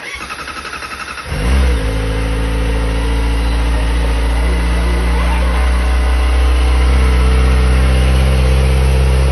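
Kawasaki ZX-4RR's 399 cc inline-four cranked by its electric starter for just over a second, then catching with a brief flare of revs and settling into a steady idle.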